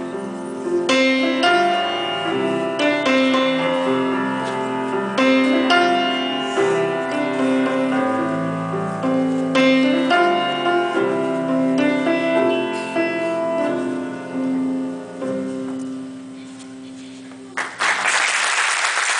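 Solo piano playing the quiet closing bars of a recorded worship song, its notes thinning out and fading. About a second and a half before the end, the audience breaks into applause.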